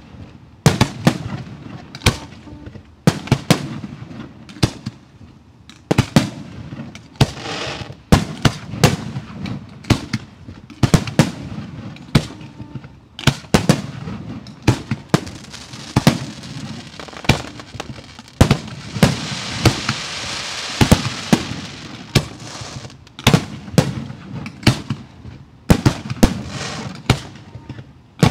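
Professional 1.3G aerial fireworks display: a run of sharp shell bursts and reports, irregularly spaced and at times several a second. About two-thirds of the way through comes a dense stretch of rapid crackling.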